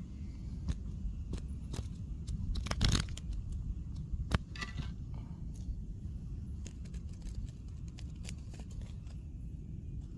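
Low wind rumble on the microphone, with scattered crackles and scrapes from a knitted glove handling close to it. A louder rustle comes about three seconds in and a sharp click just after four seconds.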